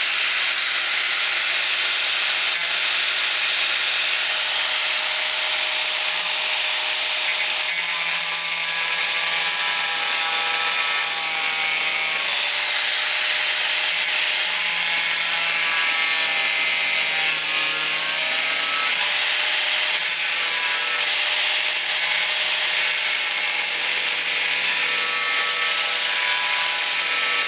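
Angle grinder with a thin cutoff wheel cutting through sheet-metal body panel. It gives a steady high hiss with a motor whine whose pitch wavers as the wheel bites.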